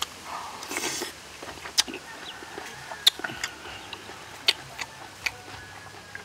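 Eating sounds: a metal spoon and fork clinking sharply against a plate several times, with a short slurp about a second in and chewing between.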